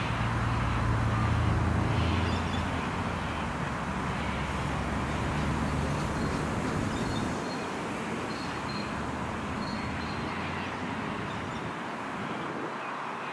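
Road traffic noise: a vehicle engine's low hum, strongest in the first couple of seconds and fading out about seven seconds in, over a steady rush of passing traffic.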